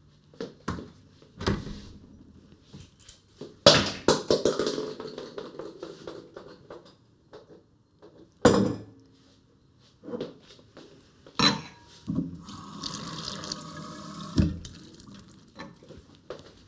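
Kitchen handling sounds: knocks from a refrigerator door and a glass bottle being set about, and wine poured into a stemmed glass, with a stretch of pouring near the end.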